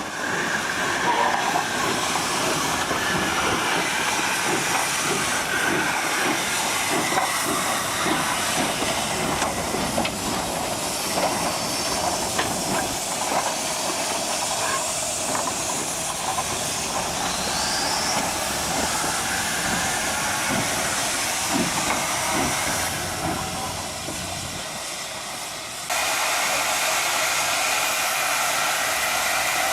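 Steam locomotive hissing steadily, with scattered knocks and clanks underneath. About 26 seconds in the sound changes abruptly to a louder, steadier hiss.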